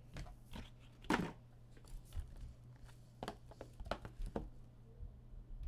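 Trading cards and their packaging being handled: several short rustles and scrapes, the loudest about a second in, over a steady low hum.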